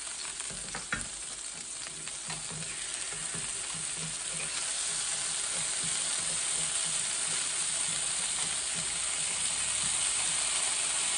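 Frozen garlic cubes sizzling as they melt in hot olive oil in a stainless steel skillet, stirred with a wooden spoon; the sizzle grows steadily louder.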